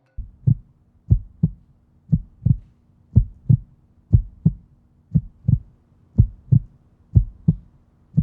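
Heartbeat sound effect: a steady lub-dub double thump about once a second over a low hum.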